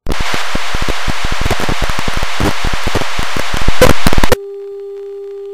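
Television static: a loud hiss crackling with clicks, which gets louder for a moment and then cuts off abruptly about four seconds in. A steady single-pitched tone takes its place.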